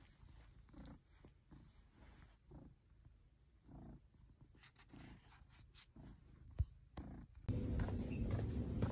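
Domestic cat purring softly, a faint low rumble that swells and fades with its breathing. About seven and a half seconds in it cuts suddenly to a louder, steady background noise.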